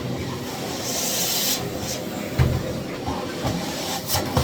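Miele Blizzard CX1 bagless canister vacuum cleaner running steadily, with a brief sharper hiss of suction about a second in and a few knocks as the floor tool bumps against things near the middle and end.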